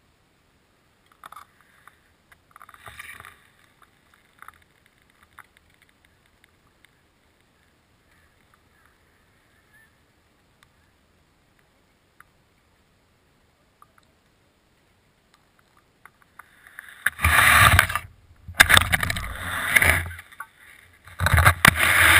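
Long stretch of near quiet with a few faint clicks, then, about seventeen seconds in, loud rubbing and knocking noise in several bursts from a hand handling the action camera's housing.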